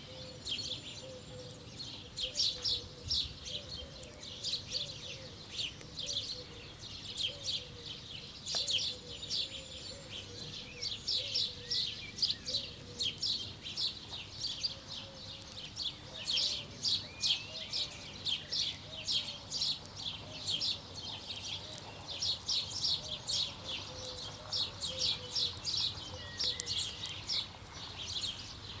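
Small birds chirping continuously, many short high chirps overlapping in a dense, busy chatter.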